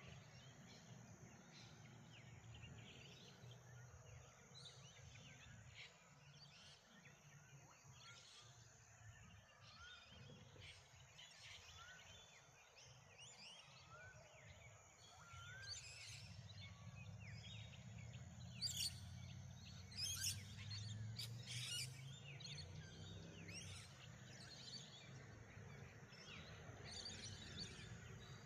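Faint morning birdsong: many small birds chirping and trilling, busiest and loudest about two-thirds through, over a low steady background rumble.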